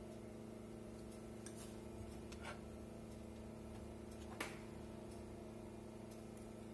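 Light clinks of glass bowls as beaten egg yolks are tipped from a small glass bowl into a glass mixing bowl of flour and scraped out; the sharpest clink comes about four and a half seconds in. A faint steady hum runs underneath.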